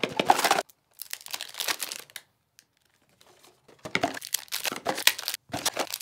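Paper or plastic cube packaging crinkling as it is handled and unwrapped, in three spells of rustling with short quiet gaps between them.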